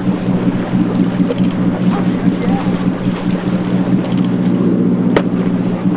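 A boat's engine runs steadily with a low drone, under wind and water noise. There is a single sharp click about five seconds in.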